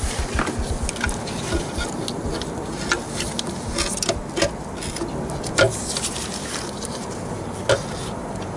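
Scattered light clicks and knocks from an engine's lower timing cover being handled and fitted against the block, over a steady background hiss.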